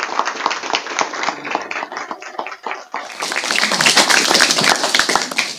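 Audience applauding: many people clapping together, dense and continuous.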